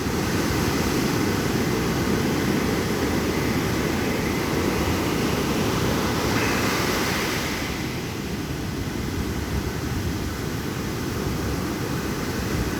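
Heavy ocean surf from big waves: a steady wash of breaking water, swelling louder about six seconds in as a wave crashes, then easing.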